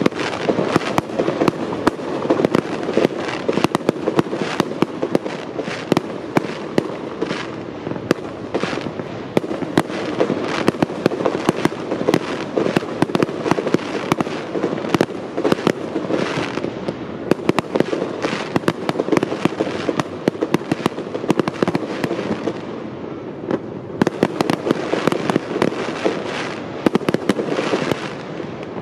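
Aerial fireworks bursting in rapid succession: a dense, continuous run of bangs and crackles, with a short lull about 23 seconds in before the bursts pick up again.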